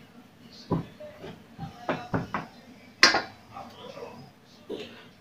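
Scattered hard knocks and clatter of kitchen utensils: three quick ones about two seconds in, a louder knock about three seconds in and a softer one near the end.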